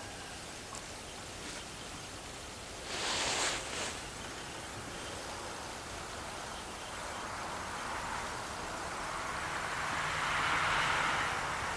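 Outdoor background noise: a short rustle about three seconds in, then a hiss that slowly swells and peaks near the end.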